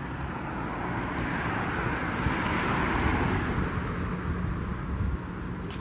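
Traffic noise from a car going by: tyre and road noise swells to a peak about two to three seconds in, then fades.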